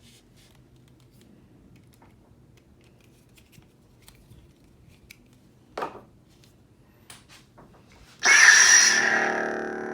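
Faint handling clicks on a lightsaber hilt, one sharper click near six seconds. About eight seconds in, the Vader's Vault Rival Elite's Crystal Shard 4.5 sound board plays a sudden loud ignition sound through its speaker, which settles into a steady electronic hum.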